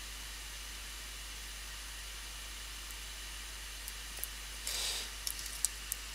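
Faint steady hiss, with a few light clicks and one short scrape in the second half: small scissors pressing on an LED strip and failing to cut through it.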